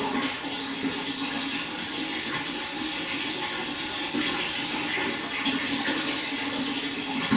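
Running water, a steady unbroken rush of flowing and splashing water.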